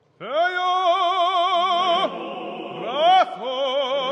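Cantor singing in the Jewish cantorial style. After a scooping entry he holds one long note with wide vibrato. About two seconds in, a male choir holds a low chord beneath while the voice sweeps through ornamented runs.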